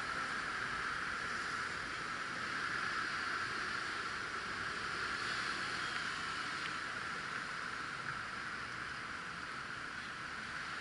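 Steady hiss of city street ambience, with no single sound standing out.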